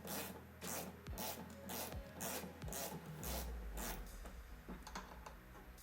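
Ratchet wrench rasping in repeated short strokes, about two or three a second, as a bolt is loosened and removed; the strokes grow fainter after about four seconds.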